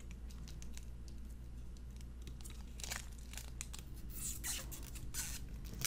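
Protective plastic film being peeled and picked off new electronics: faint crinkling and tearing with scattered small clicks, a few louder rustles in the second half.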